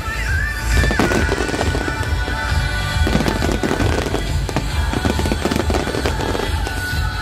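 Aerial fireworks bursting overhead in quick succession: a dense, continuous run of bangs and crackles.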